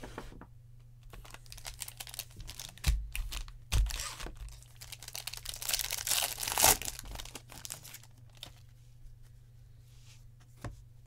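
Foil wrapper of a 2020 Bowman Draft trading-card pack crinkling and being torn open by hand, the loudest tearing about two-thirds of the way through. Two dull thumps come a few seconds in.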